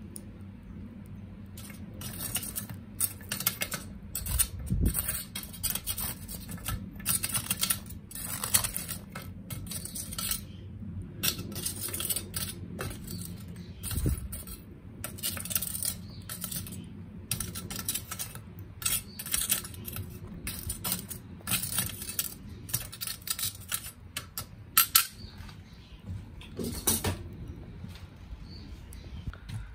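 Binchotan charcoal giving a dense, irregular run of sharp clinks and crackles, with two dull thumps, one about five seconds in and one midway. The crackling thins out near the end.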